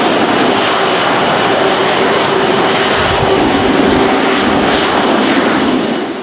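Airbus A330's twin Rolls-Royce Trent 700 jet engines running at idle as the airliner taxis in, a steady loud rush with a faint hum beneath it, fading out at the very end.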